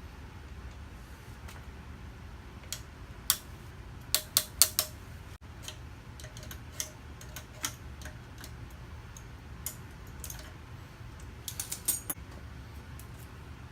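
Scattered sharp clicks and taps of small metal parts and tools being handled, some in quick runs of three or four, over a steady low hum.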